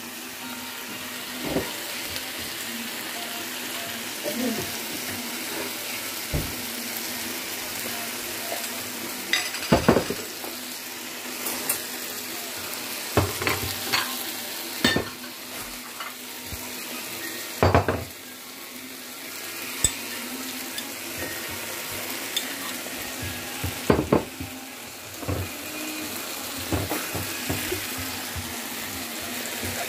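Chicken and vegetable stir-fry sizzling in a frying pan, stirred with a utensil that knocks and scrapes against the pan now and then.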